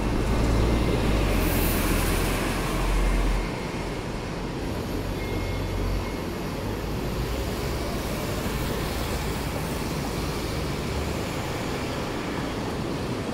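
Ride noise of a Hong Kong double-decker tram heard from its upper deck, mixed with street traffic: a steady rumble. A heavier low rumble runs for the first three and a half seconds, then falls away.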